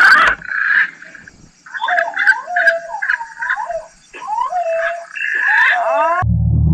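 Green pigeons (punai) calling: wavering, gliding whistled notes in several phrases, with short gaps about one and a half and four seconds in. The calls cut off abruptly about six seconds in, giving way to a low rumble.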